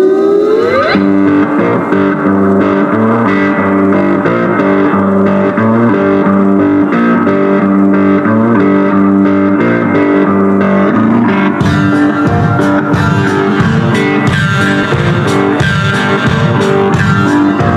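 Guitar-led rock music played loud through a side-by-side's custom speaker system (roof pods and tower speakers driven by a four-channel amp), as a test of the new stereo. A rising sweep ends about a second in, and percussion comes in about twelve seconds in.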